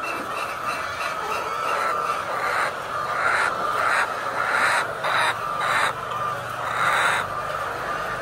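A flock of chickens in a poultry shed calling together in a steady, dense din, swelling in several louder bursts in the middle.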